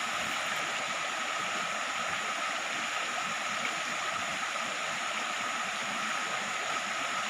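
A stream flowing: a steady, even rush of water, with a faint steady high tone over it.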